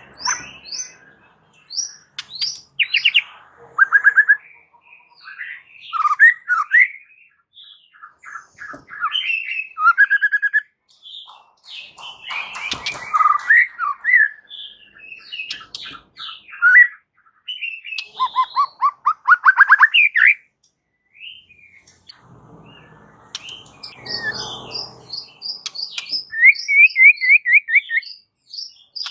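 White-rumped shama in full song: a long, varied run of clear whistles, slurred notes and rapid trills of repeated notes, delivered in quick phrases separated by short pauses.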